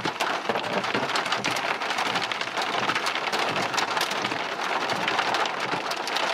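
Heavy rain pelting down: a dense, steady hiss with many sharp ticks of drops striking hard surfaces, as a storm that is about to drop hail moves in.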